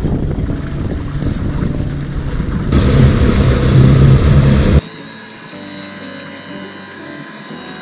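Twin outboard motors running, then throttled up about a third of the way in, pushing the boat onto its trailer. Near the middle the engine sound cuts off abruptly and quieter background music with held notes takes over.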